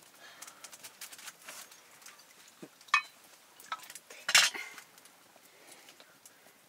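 Metal kitchen utensils knocking and clinking against cookware, with light scraping between. Two sharp ringing clinks stand out, about three seconds in and again just over a second later, the second the loudest.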